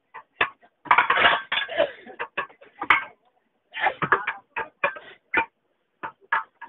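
Steel tyre lever clinking, knocking and scraping against a tractor's steel wheel rim as the tyre is levered off the rim. The knocks come irregularly, with a dense clatter about a second in.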